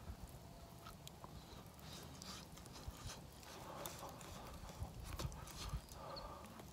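Mouth sounds of eating a hot charcoal-roasted sweet potato: chewing and lip smacking with small clicks, and a few breathy puffs of air to cool the hot food in the mouth.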